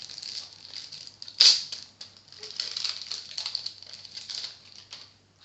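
Crinkling and rustling of plastic card-pack wrappers and trading cards being handled, a quick run of small crackles with one loud crackle about one and a half seconds in.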